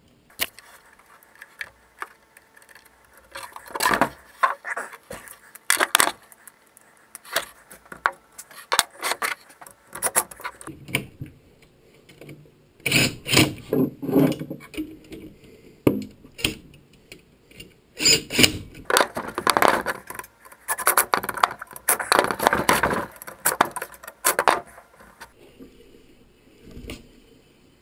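Nuts being run onto the through-bolts of a Doerr electric motor's end bell and the reassembled motor being handled: irregular metal clinks, scrapes and knocks, busiest in the second half.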